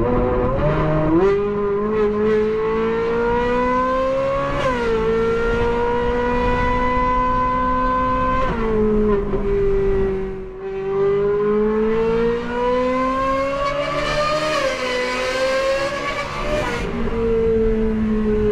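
Ferrari 458 Spider's naturally aspirated V8 running under way, heard from the driver's seat with the roof open. Its pitch climbs slowly and drops sharply at gear changes, five times.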